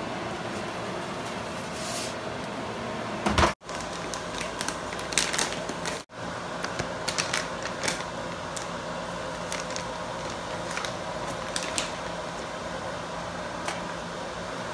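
Kitchen worktop handling noise over a steady appliance hum: scattered light clicks and crinkles as food and kitchenware are handled, with one louder knock about three seconds in. The sound drops out briefly twice.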